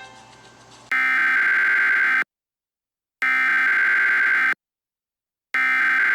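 Emergency Alert System SAME header: three identical bursts of harsh digital data tones, each about a second and a half long, with about a second of silence between. The coded header that opens an EAS alert, here a severe thunderstorm warning.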